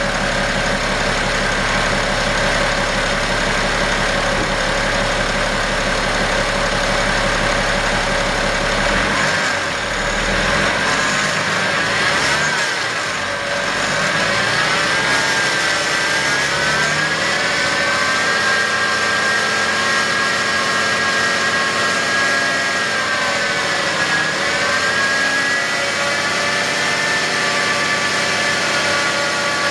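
2011 BMW X5 35d's diesel engine running, with a steady high whine from its failing idler pulley. The low engine rumble drops away about a third of the way through, and the whine bends up and down in pitch a couple of times.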